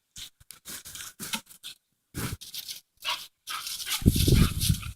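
Two Staffordshire terriers play-wrestling, making short broken dog noises, louder about four seconds in.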